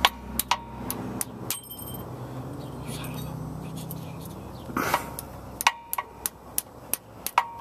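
Hammer tapping a screwdriver to drive a U-joint retaining clip into the driveshaft yoke: sharp metal taps with a short ring. There are several in the first second or so, a pause, then a quicker run of taps near the end. The clip is not seating.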